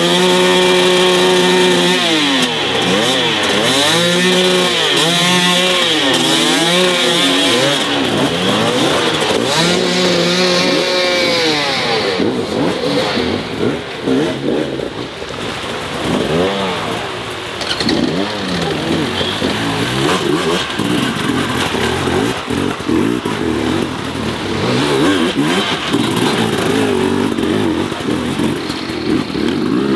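Hard enduro dirt bike engines revving up and down repeatedly, the pitch rising and falling every second or two.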